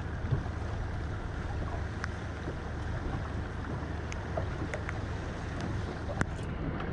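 Steady wind rumble on the microphone and water washing around a small boat at sea, with a few faint sharp ticks.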